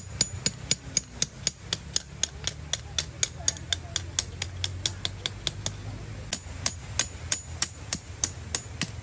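Rapid, even hammering: about three sharp, ringing strikes a second on metal, with a short pause partway through.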